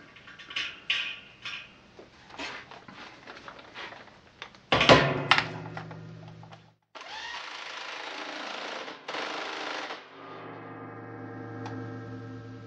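A power impact tool with a socket driving a nut down onto a dry 304 stainless steel bolt held in a bench vise. Handling clicks come first, then one loud metal clank about five seconds in. About two seconds later comes roughly three seconds of rapid hammering, then a steady motor hum from about ten seconds in.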